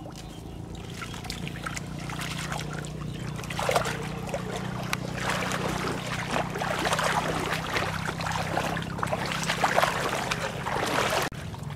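Water sloshing and splashing around a person's legs as they wade through shallow floodwater, in uneven strides that grow busier after a few seconds. A faint steady low hum lies underneath and fades out near the end.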